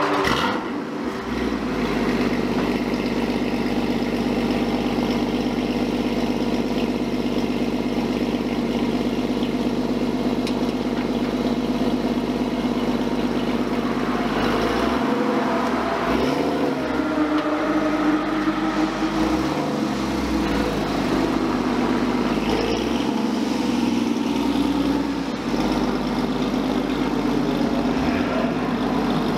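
A car engine running at a steady idle, its note rising and falling a few times in the second half as the revs change.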